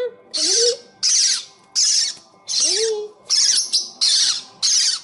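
Young parrotlets giving harsh, raspy begging calls while being spoon-fed, in a steady run of short bursts about once every three-quarters of a second.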